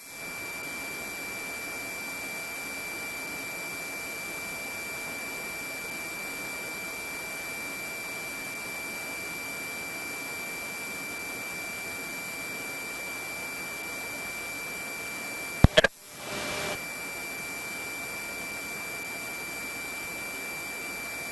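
Steady high electronic tone over even hiss on the helicopter's radio and intercom audio feed. A sharp click and a brief break come about three-quarters of the way through, like a radio key-up, and then the tone resumes.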